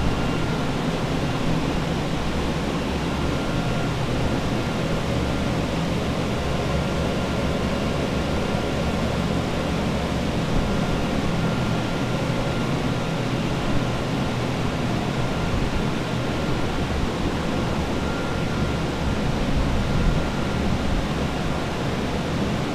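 Air movers and dehumidifiers running together as structural drying equipment: a steady, even rush of blowing air with a low hum and a faint high whine.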